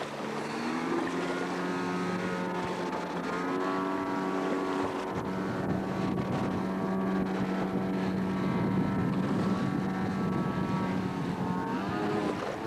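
Water-jet boat's Nissan car engine running under way. Its pitch rises in the first second, then holds steady over a rushing noise and drops near the end.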